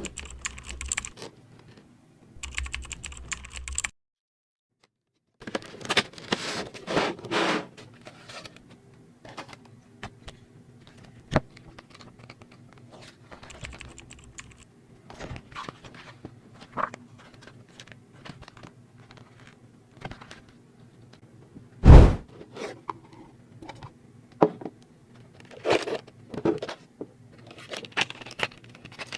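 Hands handling Pokémon trading card packaging: a run of irregular clicks, taps and short crinkly rustles, with one loud thump about 22 seconds in. The sound cuts out entirely for about a second and a half near the start.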